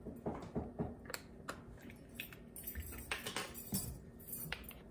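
Scattered light clicks and clinks of kitchen utensils being handled, measuring spoons among them, as chili powder is got ready for the pot.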